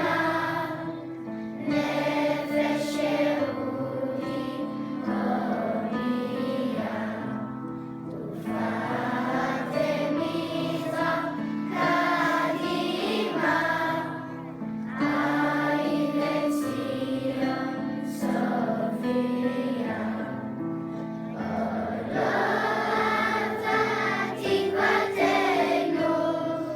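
A choir singing a song over musical accompaniment.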